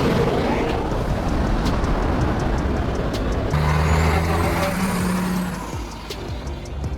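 Fuel tanker truck's engine running steadily, its low engine note growing louder about halfway through, then fading near the end.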